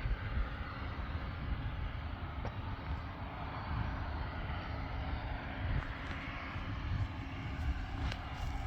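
Harvest machinery running steadily: a continuous engine rumble with a broad hiss over it.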